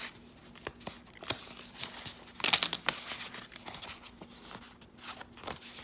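Sheets of painted paper and cardstock being handled: scattered rustles, crinkles and light taps, with a louder burst of rustling about halfway through.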